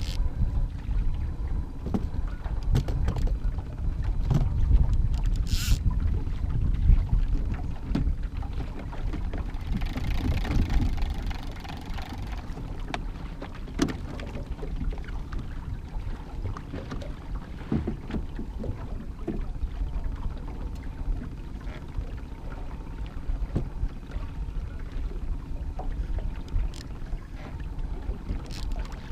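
Wind rumbling on the microphone over water lapping at a small aluminium fishing boat. Scattered clicks and knocks come from fishing rods, reels and a downrigger being handled, with a sharp click about six seconds in and a brief rush of hiss near the middle.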